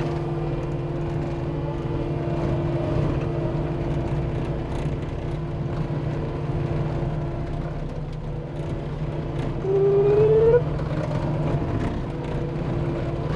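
Cat 259D compact track loader's diesel engine running steadily, heard from inside the cab. About ten seconds in, a rising whine lasts about a second and is the loudest sound.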